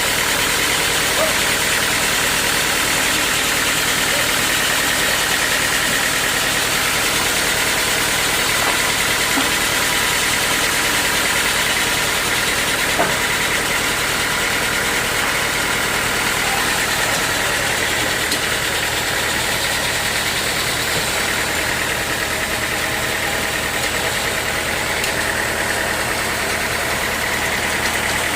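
Sawmill machinery running steadily with a constant mechanical drone, and one faint knock about halfway through.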